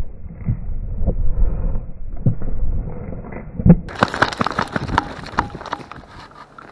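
Muffled rubbing and bumping on a body-worn camera's microphone, with several heavy thumps. About four seconds in the sound turns suddenly crisp: close crackling and snapping of dry leaves and twigs against the camera near the ground.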